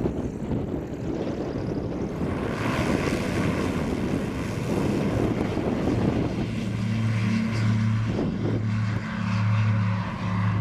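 A small propeller-driven amphibious aircraft's engine running, heard through a rushing noise. About two-thirds of the way in, a low steady engine hum comes to the fore, pulsing in level.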